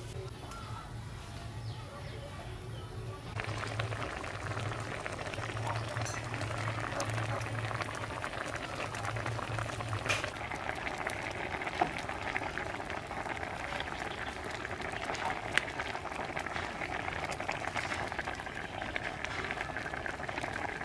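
Fish and tomato stew boiling in a wok, a dense, steady bubbling and crackling that sets in about three seconds in, with a few sharp clicks. Before it there is a low, pulsing hum.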